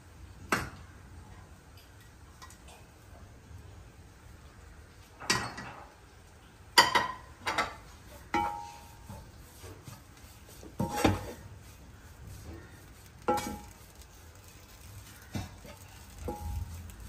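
Wooden spatula stirring and scraping a dry minced-beef masala in a nonstick wok. Irregular knocks of the spatula against the pan every second or two, a few with a brief ringing clink.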